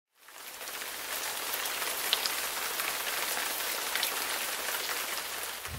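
Steady rain falling, a dense patter of drops that fades in over the first half second.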